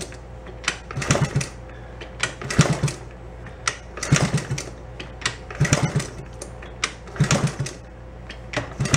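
Honda 50 mini bike's single-cylinder four-stroke engine being kicked over by hand again and again, about once every second and a half. Each stroke gives a clatter from the kick lever and a quick run of low chugs, and the engine does not catch.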